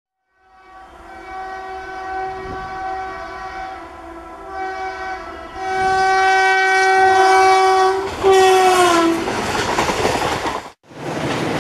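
Indian Railways electric locomotive's air horn sounding long blasts as the train approaches, briefly broken off and resumed, then dropping in pitch as the locomotive passes. The rumble and clatter of the passing coaches follows, and the sound cuts off suddenly near the end.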